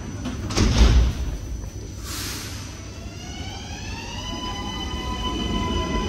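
Milan Metro Leonardo train pulling out: a loud thud of the doors shutting about a second in, a short hiss a second later, then the electric motors' whine rising in pitch and holding steady as the train gathers speed.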